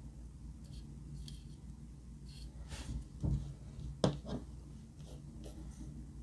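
Brush dabbing and stroking thick white cream onto glitter slime: a few short, soft scratchy strokes, then louder sticky clicks and squelches of the slime about three to four seconds in.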